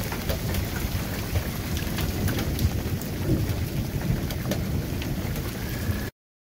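Heavy rain pouring in a thunderstorm, with a low rumble of thunder under many sharp drop ticks; the sound cuts off suddenly about six seconds in.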